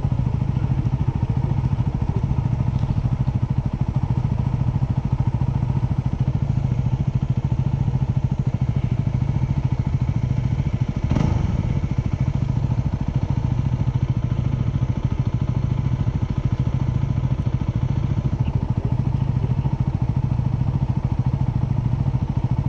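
Yamaha WR250R's single-cylinder 250 cc engine idling steadily, with one brief knock about halfway through.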